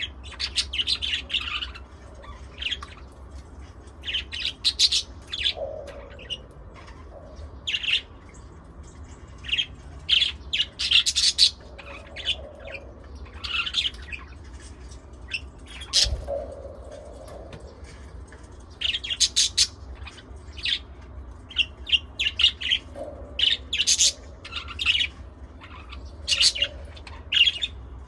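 Pet lovebirds and budgies chirping and squawking in many short, sharp, high calls, with a few lower calls among them. A steady low hum runs underneath.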